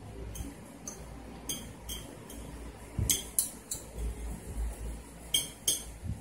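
Spoon and fork clinking and scraping against plates during a meal: scattered sharp clinks, loudest in a cluster about three seconds in and again near the end.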